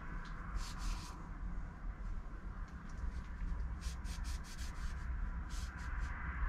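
Oily cloth rag rubbing over a small hand-forged steel knife blade, working linseed oil into the warm, freshly tempered steel: short scratchy rubbing strokes in a few clusters, over a steady low hum.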